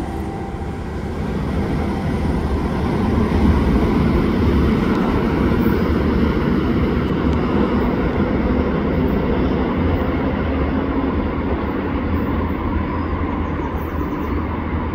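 Diesel commuter locomotive, a Bombardier ALP-45DP dual-mode unit running on its diesel engines, working under power as the train departs, a steady low rumble mixed with wheel and rail noise. It grows a little louder a few seconds in and then holds.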